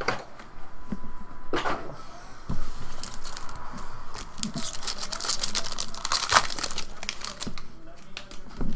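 Foil trading card pack being torn open, its wrapper crinkling in a dense rustle that is strongest in the middle few seconds, with light clicks and slides of the cards being handled.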